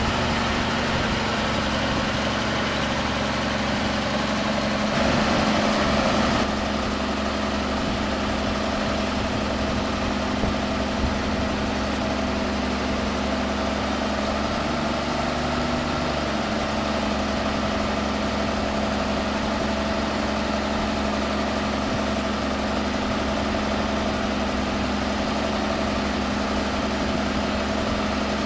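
Engine of a 1951 International truck running steadily at idle, with a brief louder stretch about five seconds in, while it powers the knuckle boom crane's hydraulics.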